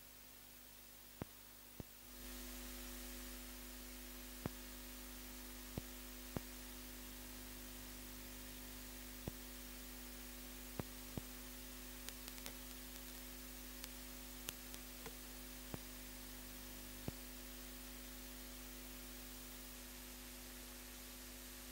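Faint electrical mains hum and steady hiss, with scattered sharp clicks: the residual noise of a live TV broadcast whose sound feed has dropped out. The hum gets a little louder about two seconds in.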